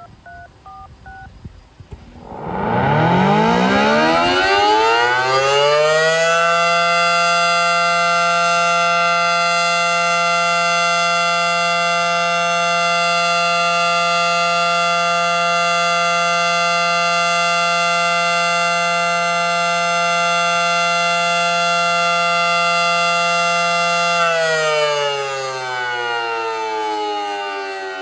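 A few short touch-tone beeps, then a Federal Signal Model 7T outdoor warning siren winding up and holding a steady Alert tone for about eighteen seconds before it starts winding down near the end.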